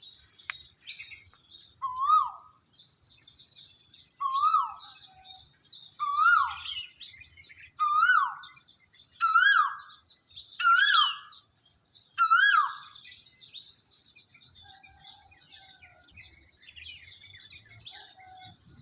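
A bird calling: seven repeated notes, each a quick rise and fall in pitch, about every one and a half to two seconds, stopping about two-thirds of the way through. A steady high hiss runs underneath throughout.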